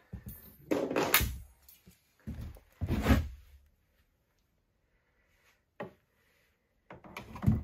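Metal clunks and scrapes of a hooked wire tool and steel exhaust springs being worked on a snowmobile muffler: knocks about a second and three seconds in, a light click near six seconds, and another clunk at the end, with quiet between.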